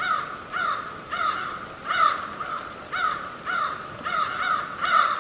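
A bird giving a steady series of short, harsh calls, about two a second.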